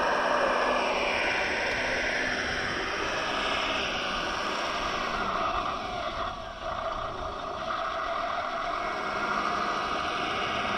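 Radio-controlled 1:11 Ural 4320 model truck driving: its brushed 550 electric motor and gear train whining steadily, the whine dropping in pitch about a second in as it slows, with a short dip in level a little past the middle.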